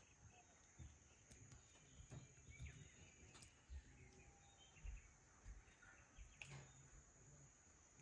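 Near silence: quiet outdoor ambience with a steady high insect hum, a few faint bird chirps and some soft low thumps.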